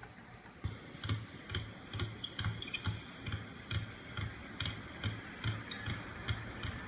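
Two basketballs dribbled on a wooden gym floor: a steady run of bouncing thuds, about two a second, starting just under a second in.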